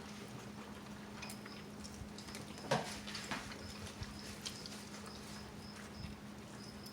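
Quiet eating sounds: chewing and small clicks of utensils and food handling, with one louder click about halfway through, over a steady low hum.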